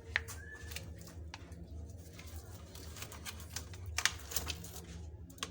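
Plastic food packets rustling and clicking as frozen food is handled in a freezer, with the loudest rustle about four seconds in, over a steady low hum.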